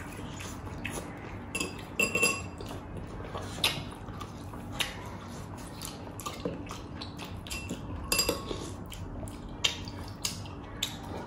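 Tableware clinking during a meal: spoons and fingers knocking on ceramic plates, bowls and a glass dish, in scattered sharp clinks every second or so, some ringing briefly. A faint steady low hum runs underneath.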